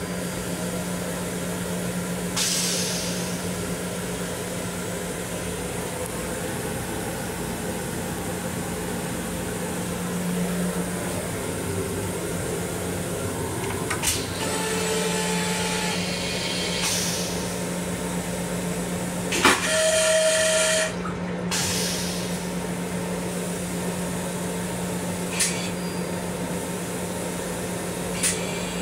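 M7 railcar toilet being flushed over a steady hum. About halfway through, the flush button clicks and a whirring whine starts. A few seconds later a sharp click sets off a short, loud rush of the flush, and a couple of small clicks come near the end.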